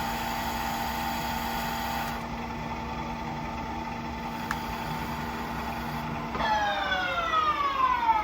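A lathe runs with a steady hum. About six seconds in it is switched off and the spindle winds down, its whine falling steadily in pitch. A single click comes about halfway through.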